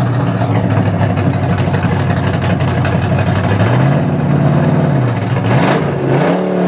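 Stock race car engine idling loudly and steadily, then revved in a few blips in the second half, its pitch rising and falling, rising again near the end as it gets ready to pull away.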